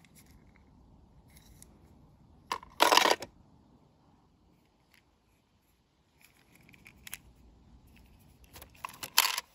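Diecast toy cars pushed and handled on a weathered wooden railing: two short, loud scraping rustles, one about three seconds in and one near the end, with softer rustles between.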